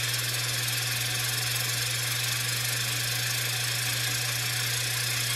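Steam-driven carousel teapot at a hard boil on a gas burner, its spinning carousel making a steady loud hiss over a low hum that sounds like a steam train.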